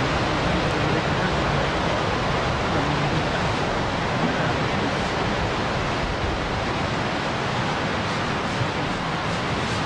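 A steady, even rushing noise with no distinct sounds in it.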